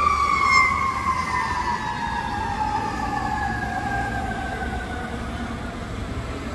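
Federal Q mechanical siren on a fire engine winding down, its wail falling slowly and steadily in pitch and fading as the rotor coasts.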